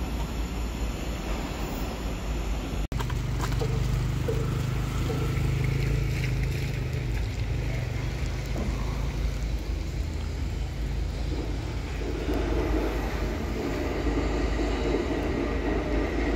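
A vehicle running steadily, with engine hum and road noise. The sound cuts out suddenly for a moment about three seconds in, and a low engine hum is stronger for several seconds after.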